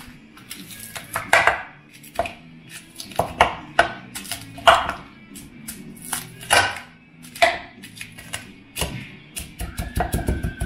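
Dried fried red chillies being pounded with a metal pestle in a ceramic bowl: irregular sharp knocks of metal on ceramic, about one every half second to a second, with the brittle chillies cracking underneath. Background music comes in louder near the end.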